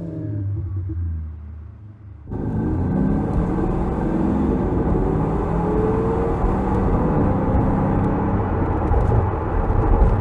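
BMW 320i's THOR active exhaust speaker playing its synthesized Mercedes-AMG G63 V8 sound: a low engine note settling for about two seconds, then a sudden jump into hard acceleration with the pitch rising, easing off and rising again.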